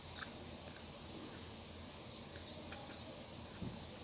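An animal chirping in a steady rhythm: short high chirps repeating evenly, about two to three a second, over a faint low hum.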